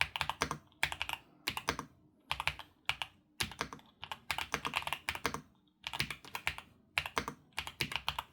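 Typing on a YUNZII B75 Pro mechanical keyboard: quick runs of clacking keystrokes, each run about half a second long, coming roughly once a second with short pauses between.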